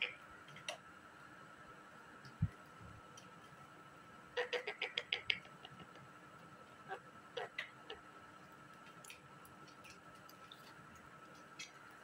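Indian ringneck parrot tapping its beak against mirror glass: a quick run of about eight sharp clicks about four seconds in, then a few single taps a little later. A single low thump just after two seconds.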